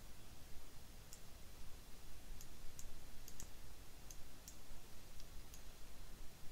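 Computer mouse clicking: about nine faint, sharp clicks at irregular intervals, over a low steady hum.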